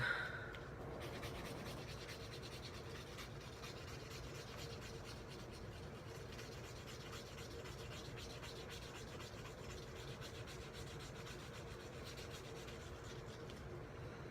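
A coin scratching the coating off a scratch-off game card, a faint continuous scraping.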